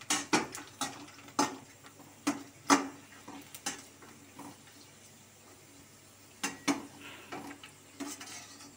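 A perforated steel skimmer clinking and scraping against a stainless-steel kadai as puris are turned in hot oil, in irregular clusters of sharp metallic taps, with a faint sizzle of the frying oil between them.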